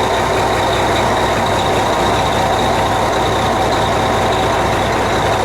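Volvo VNL 780 semi truck's diesel engine idling steadily, with a steady high whine over the running.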